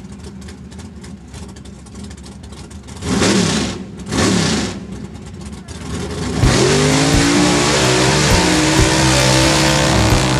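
A vehicle engine rumbles low, then revs twice in quick rising-and-falling sweeps. From about six and a half seconds in, louder steady music takes over with engine noise.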